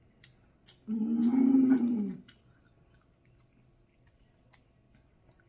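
A woman's drawn-out wordless moan, starting about a second in and lasting just over a second, with its pitch rising slightly and then falling. Around it come a few faint clicks of snow crab shell being picked apart.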